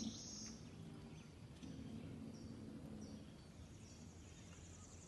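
Faint outdoor ambience: an insect trilling in a high, finely pulsed buzz through the second half, with a few short, high bird chirps before it.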